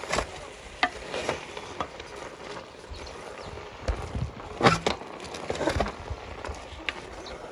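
Wooden spoon stirring and tossing shredded cabbage in a metal cooking pot: irregular scrapes and knocks against the pot's sides, the loudest cluster a little under five seconds in.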